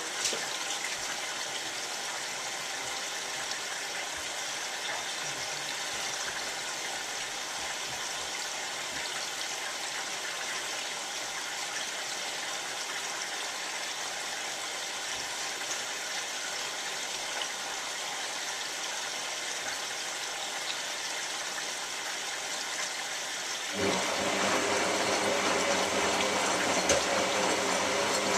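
Hotpoint 9534A washing machine with water hissing steadily as it runs into the machine. About 24 seconds in, a louder, humming, pump-like sound starts up suddenly and carries on.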